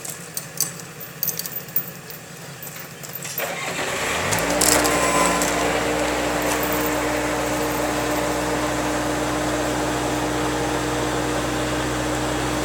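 Scattered light metallic clinks and rattles, then about four seconds in a vehicle engine starts, its pitch rising as it catches, and settles into a steady idle.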